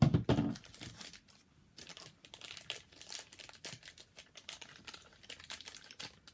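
Plastic packaging of a blind-bag collectible being crinkled and crumpled by hand in irregular crackles, after a brief loud burst right at the start.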